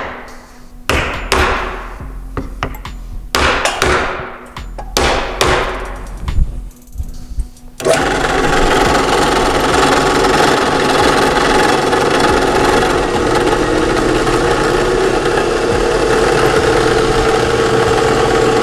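Several ringing hammer blows on a drill-press chuck, driving it onto its tapered arbor to seat it. About eight seconds in, the WEN 12-inch variable-speed drill press's motor switches on and runs steadily at high speed.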